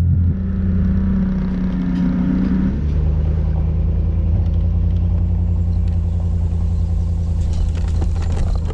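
An engine running steadily with a low hum; its pitch drops slightly about three seconds in.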